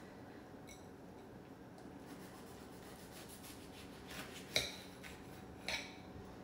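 Serrated knife sawing through a crisp mini-waffle breakfast sandwich, a quiet rasping scrape, with a few sharp clicks of the knife on the plate, the loudest two near the end.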